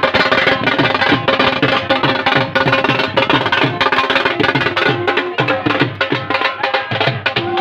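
A dhol and a smaller drum beaten with thin sticks in a fast, steady, unbroken rhythm of drum strokes.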